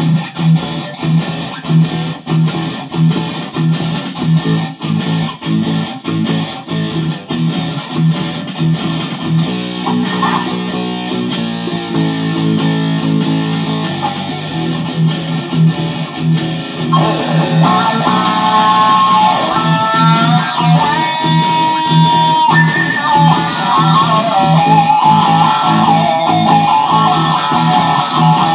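Electric guitar playing a blues solo over a backing track with a steady beat. From about halfway in, the lead plays bent, sliding notes and holds one long note.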